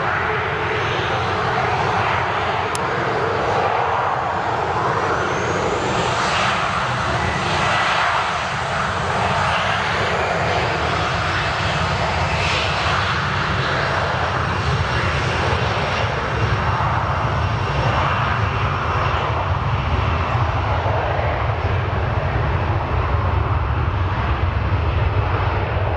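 Boeing 737-300's CFM56-3 turbofan engines at takeoff power as the jet starts its takeoff roll, loud and steady throughout. A high whine rises about five seconds in, and the low rumble grows stronger near the end as the aircraft accelerates away.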